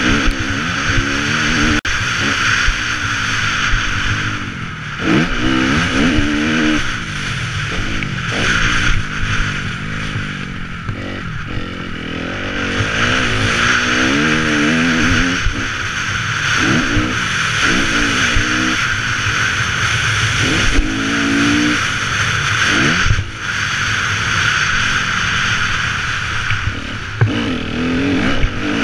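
Motocross bike engine revving hard and dropping off again and again as the rider accelerates up through the gears, shuts off and picks up again around the track, heard close up from the bike itself over a steady hiss.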